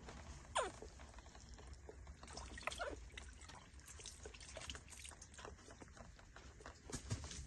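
Baby macaques giving short squeaky calls that slide down in pitch, once about half a second in and again around three seconds, over water trickling and dribbling in a plastic basin with small splashes and clicks.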